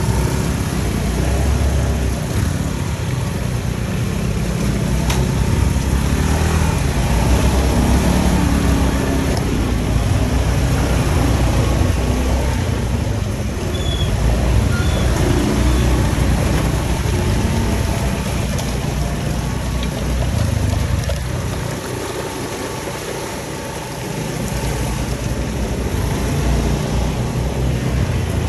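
Motor scooter running while it is ridden along a wet concrete path, its engine mixed with a heavy, uneven rumble of riding noise.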